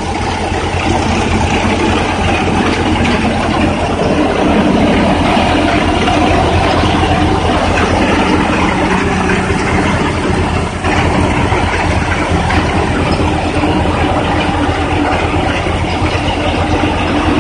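Tractor-powered mustard threshing machine running steadily at work: the tractor engine's low, even running under the thresher's mechanical noise as mustard is threshed and sieved.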